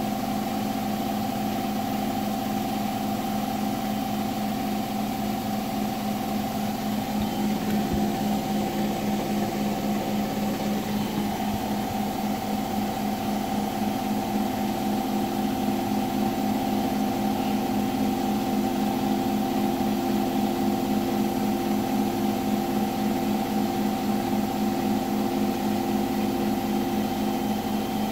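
Hotpoint washing machine on its final spin at 1400 rpm: a steady motor-and-drum hum with an even, fast pulsing beat running through it, the weird knocking noise heard at top spin speed.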